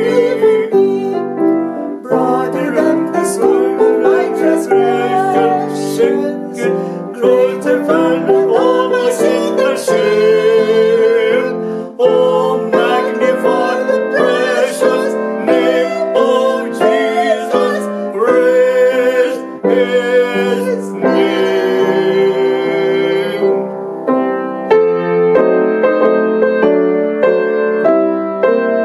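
Upright piano accompanying voices singing a gospel hymn refrain; the singing ends about 24 seconds in and the piano plays on alone.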